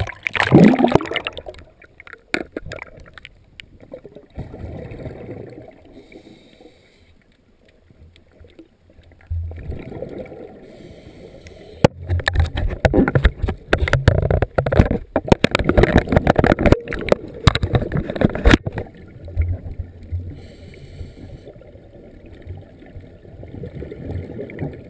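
Underwater scuba breathing: bursts of exhaled regulator bubbles rumbling and crackling past the camera housing, one after each breath. The longest and densest bubbling comes in the middle, with a loud gurgling rush right at the start as the camera goes under.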